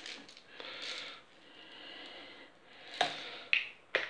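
A plastic-capped jar of peppercorns being handled: the cap is screwed shut with a faint rasp, then a few sharp knocks as the jar is put down on the granite counter, about three and four seconds in.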